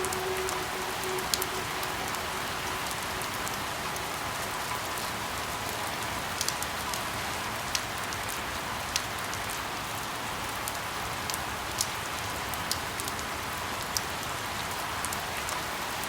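Steady rain falling, an even hiss with individual drops ticking sharply on a surface now and then.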